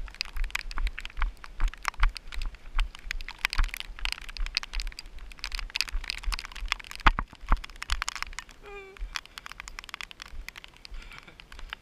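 Crackling and rubbing handling noise from a handheld camera carried at a jog, over regular low thumps of footsteps on a wet trail.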